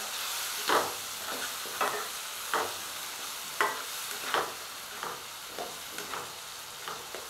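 Spiced onion-tomato masala sizzling in oil in a nonstick kadai while a spatula stirs and scrapes it, a stroke every second or so over a steady frying hiss. The masala is being fried down (kosha) until the oil separates.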